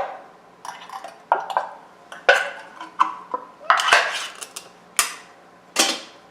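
Irregular clattering of hard objects being handled: about ten sharp knocks and rattles, some ringing briefly.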